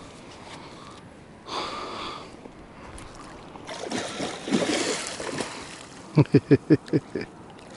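A hooked pike splashing and thrashing in the water. Near the end comes a quick run of about six short, loud pulses, the loudest sound here.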